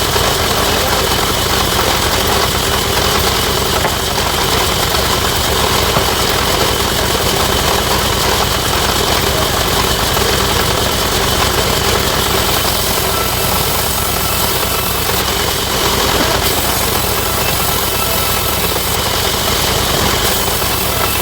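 Sawmill machinery running steadily: a continuous engine-like drone with a dense hiss, unchanging throughout.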